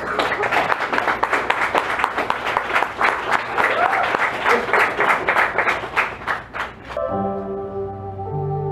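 Audience applauding for about seven seconds, then sustained synthesizer chords from a Korg keyboard begin and hold.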